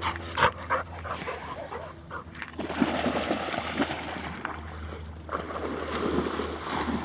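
A dog panting and whimpering, with a run of short clicks and knocks in the first couple of seconds.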